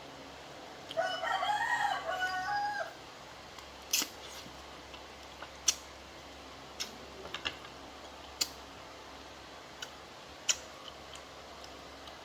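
A rooster crows once, starting about a second in and lasting about two seconds. Scattered single sharp clicks follow every second or two.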